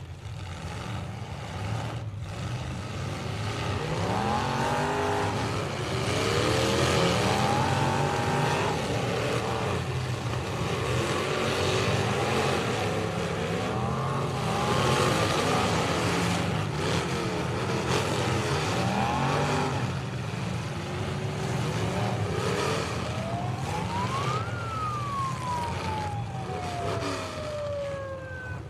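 Demolition derby cars' engines revving hard and racing up and down as several cars ram each other in the dirt arena after the green flag, with the odd knock of a hit. Near the end a single high whine climbs and then slowly winds down as the red flag stops the heat.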